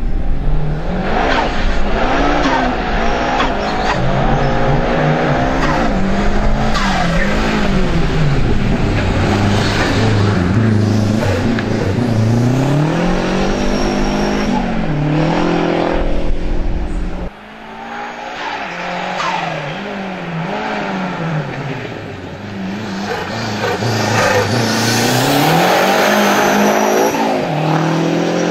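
Renault 5 slalom race car's engine revving hard, its pitch rising and falling over and over as the car accelerates and brakes through cone chicanes, with tyres squealing at times. About two-thirds through the sound drops suddenly and thins out, then builds again as the car comes on.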